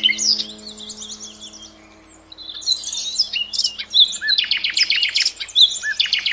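Several small birds chirping and twittering in overlapping high calls, with a lull about two seconds in, then a fast, rapid run of repeated high notes from about four seconds in.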